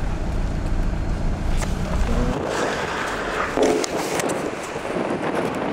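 Car interior road noise, a steady low rumble from a slowly driving car, that gives way about two seconds in to wind rushing over the microphone as it is held outside the car window.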